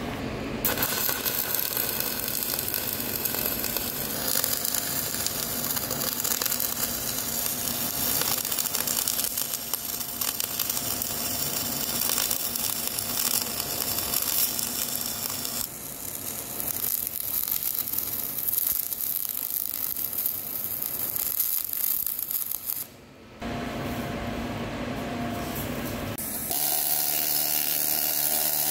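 MIG welding on a steel pin spacer: a steady crackling hiss from the welding arc, broken by short pauses between runs. Near the end a pneumatic needle scaler starts, a fast rhythmic rattling as it hammers slag and spatter off the new weld.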